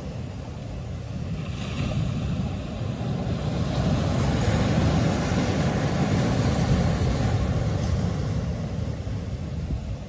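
Ocean surf breaking and washing over lava boulders: a low, rumbling wash that swells about two seconds in and eases off near the end.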